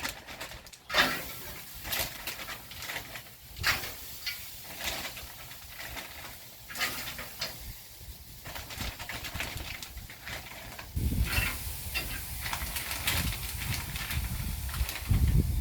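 Soaked apple wood chips being handled and dropped into the metal chip pan of a gas smoker: a string of irregular clicks, clinks and rustles. A low rumble joins about eleven seconds in.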